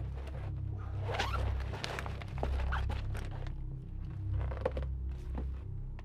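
A bag's zipper pulled open with a short rasp, then small metallic clicks and scrapes as a thin lock-picking tool is handled, over a steady low drone.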